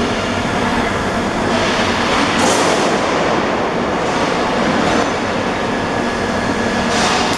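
Robotic welding cell running: a steady, dense hiss and rumble of machinery and welding arc, with a few faint steady tones, brightening briefly about two and a half seconds in and again near the end.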